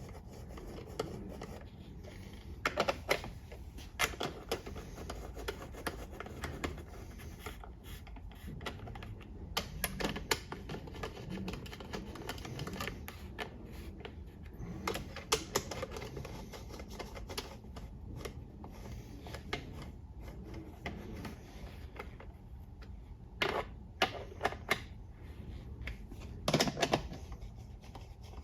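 Scattered clicks and taps of hand tools on metal, with short runs of quick clicking like a ratchet, as bolts are run in on a transmission oil pan. The loudest clusters of clicks come about a quarter of the way in and again near the end.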